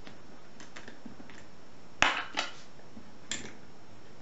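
Light metallic clicks and taps as a pick wire is drawn out of a lever mortice lock and the picking tools are handled: a few faint ticks, then a sharp click about two seconds in, followed by two lighter ones.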